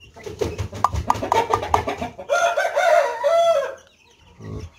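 A rooster crowing once, a held call of over a second starting about two seconds in, after a run of short clucking notes.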